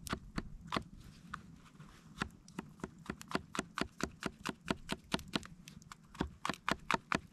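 Small knife slicing a mushroom on a wooden stump: a quick run of sharp taps as the blade goes through and hits the wood, about four or five a second, with a short pause about two seconds in.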